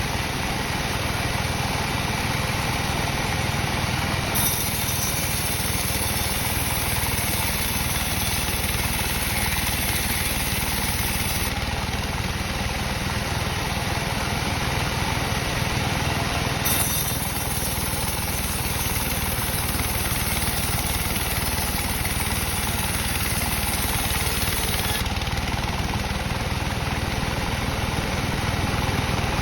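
Sawmill machinery running steadily, a continuous engine-like drone with no pauses.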